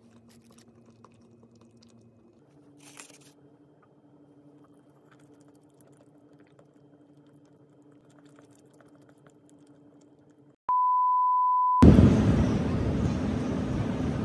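Quiet room tone, then a single steady, high electronic beep, a pure tone like a censor bleep, lasting about a second. It cuts straight into loud, busy city street noise of traffic and crowds.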